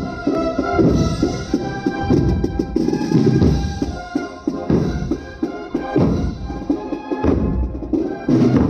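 A Holy Week procession band playing: held instrumental notes over a steady beat of drums.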